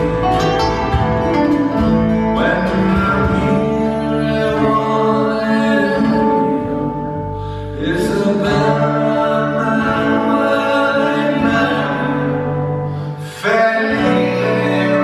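Live acoustic folk song: acoustic guitars playing with singing, a new sung phrase starting after short lulls about eight and thirteen seconds in.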